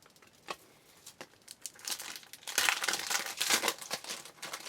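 A Bowman Chrome baseball card pack's wrapper being torn open and crinkled: a few light clicks, then dense crinkling from about two seconds in.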